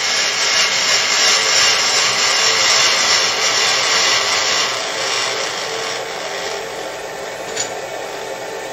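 Milling machine running with a steady whirring hum while its table traverses slowly. The sound eases a little about five seconds in, and there is one light click near the end.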